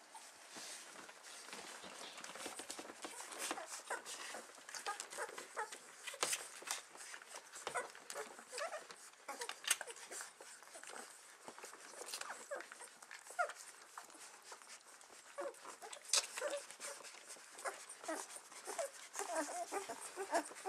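Newborn puppies suckling from their mother: many faint, short squeaks and whimpers mixed with small wet clicks.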